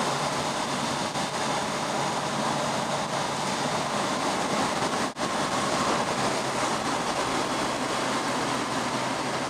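Steady wind rush and engine hum from a Kawasaki Z1000SX's inline-four cruising at constant road speed, with tyre hiss on a wet road. The sound drops out for a moment about halfway through.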